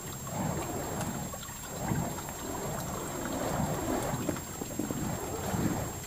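Burning fire poi swung in circles, whooshing: a low rush of flame noise that swells and fades repeatedly as the flaming heads pass.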